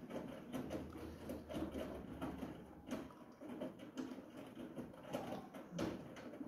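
Siemens iQ700 front-loading washing machine turning its drum at low speed during the final spin cycle, wet laundry tumbling with irregular soft knocks and patter. A low motor hum stops about three seconds in.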